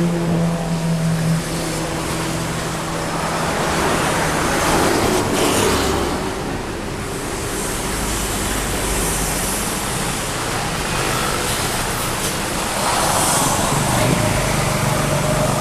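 Road traffic: vehicles driving past one after another. The noise swells about five seconds in and again near the end, and a steady low tone is heard in the first second or so.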